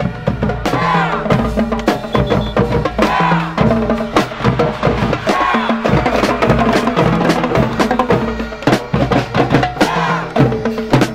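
School marching drum corps, snare drums and bass drums, playing a fast, steady cadence together.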